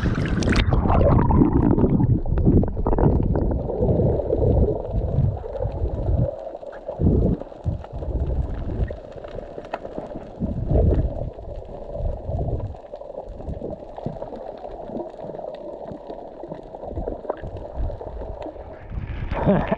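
Water heard from a camera carried underwater on a breath-hold snorkel dive. A splash as it goes under about a second in, then muffled gurgling with low, irregular thumps and rushing. A brighter splash as it breaks the surface near the end.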